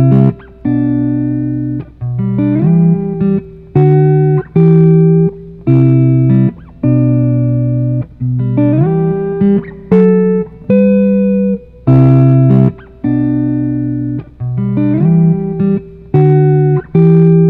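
Background music on guitar: chords struck about once a second and left to ring down, with a few notes sliding up in pitch.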